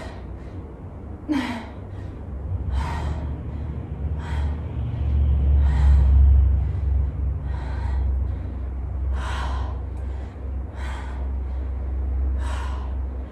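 A woman breathing out hard with effort about every second and a half, one breath per rep of goblet squats with a kettlebell. A low rumble runs underneath and swells around the middle.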